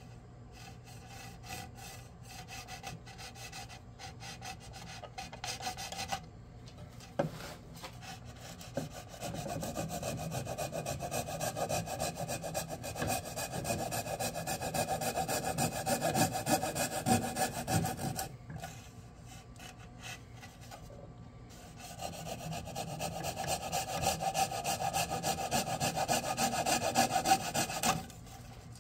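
Fine-toothed hand saw cutting white pine in quick, even strokes: the yarn slot being sawn into the wall of a wooden yarn bowl. It comes in three long spells with short pauses between them.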